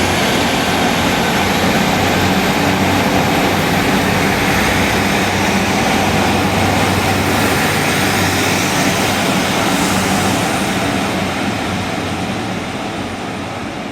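Diesel train running at the station platform with a steady engine sound and a faint high whine, easing off toward the end.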